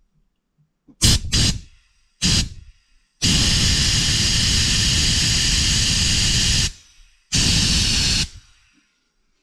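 Air blow gun on a workshop compressed-air line blasting air in hissing bursts: three short squirts, then a long blast of about three and a half seconds, then a shorter one of about a second near the end.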